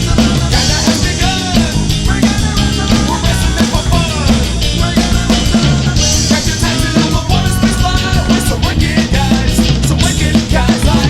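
Studio recording of a 90s indie rock song played by a full band: loud drum kit and guitars at a driving rock tempo.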